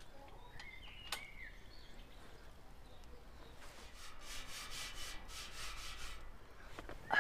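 A bird chirping a few times over faint outdoor ambience, with a stretch of rustling noise in the middle and a sharp knock at the very end.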